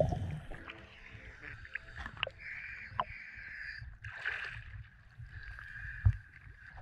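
Background music ends in the first half second; then small waves slosh and splash around a camera held at the sea surface, with a few sharp splashes and a faint steady hum behind them.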